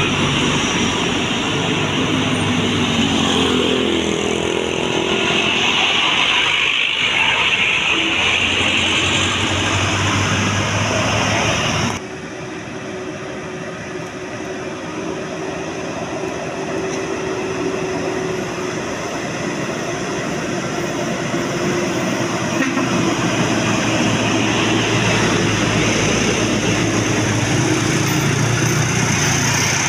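Heavy road vehicles passing on a road with their engines running, a loud steady rush of engine and tyre noise. The sound drops suddenly about twelve seconds in, then builds again as more traffic comes.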